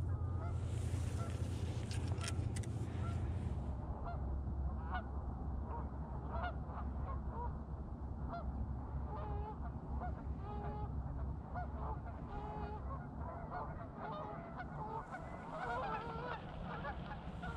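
A small flock of Canada geese honking, many short overlapping calls that grow busier near the end. A low rumble lies under the first few seconds, with a brief rustle about one to three seconds in.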